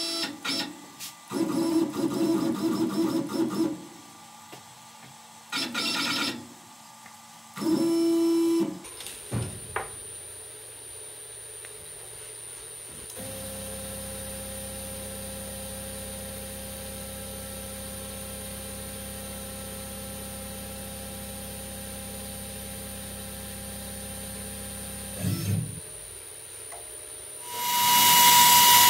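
CNC router's stepper motors whining in short bursts as the gantry moves, then a long steady low hum while the bit is lowered slowly onto a tool-length touch probe. Near the end the trim-router spindle starts up and runs loudly.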